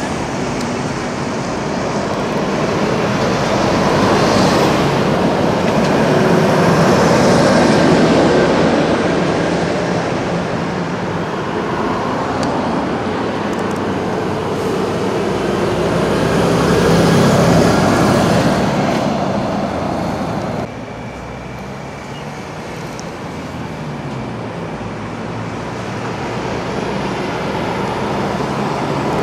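Heavy lorries and cars passing a road junction, engines and tyres swelling as each truck approaches and then fading. The level drops suddenly about two-thirds of the way through, then builds again as the next lorry and a car come by.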